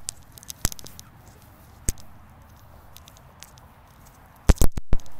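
Scattered sharp clicks and knocks, with a louder cluster near the end and a brief cut-out of all sound just after it.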